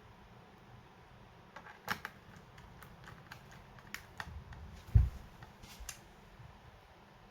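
Scattered sharp clicks and taps of small parts being handled during work on a laptop, with one loud dull thump about five seconds in.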